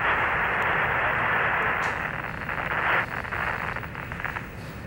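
Radio static on the Apollo 11 air-to-ground voice link: a loud, even, narrow-band hiss of an open channel for about three seconds, dropping off sharply. It is followed by a fainter crackling hiss.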